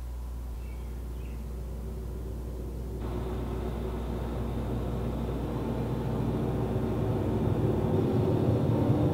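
A low rumbling drone that swells steadily louder, filling out about three seconds in: the building opening of a dark, cinematic intro soundtrack.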